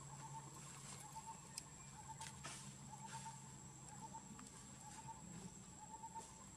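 Faint outdoor ambience: a short chirp repeating about once a second, a steady high-pitched whine, and a few light clicks.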